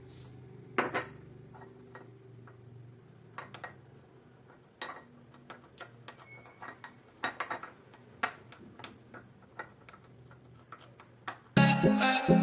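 A spoon clinking and tapping against a cooking pot at irregular intervals as cooked garlic is stirred and mashed with oil. Near the end, much louder acoustic guitar music starts.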